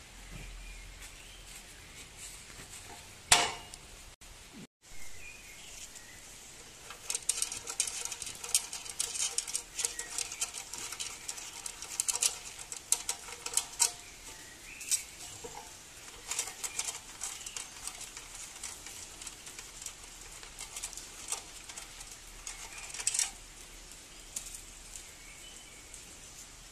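Hand assembly of a mini tiller's metal fittings and control cable: a sharp metal knock about three seconds in, then a long run of light clicks and rattles as parts and cable are handled.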